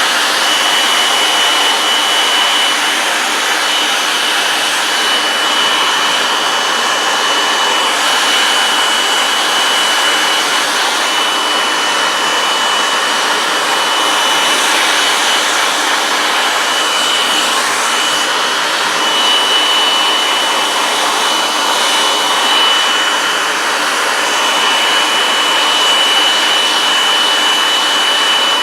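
Handheld hot-air blower running steadily on high, a constant rush of air with a thin, high, steady whine from its fan motor, heating a vinyl wrap to set it on a plastic magazine.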